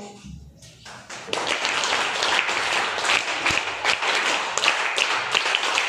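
An audience applauding, many hands clapping together, starting about a second in.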